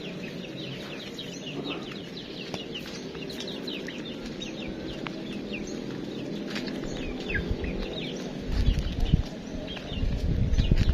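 Birds chirping busily: many short, quick, falling chirps one after another over a steady low hum, with bursts of low rumble near the end.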